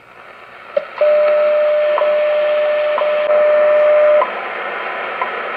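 Shortwave time-signal broadcast on 5 MHz received on a Realistic DX-150 receiver: over static, a steady tone with a tick every second, heard through the radio's speaker. The signal comes in about a second in, and the tone stops about four seconds in while the once-a-second ticks carry on.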